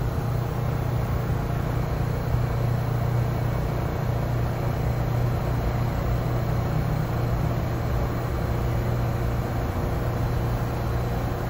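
Steady low hum of an R160 subway car's onboard equipment while the car stands at the station. The pitch does not rise or fall, so the train is not under way.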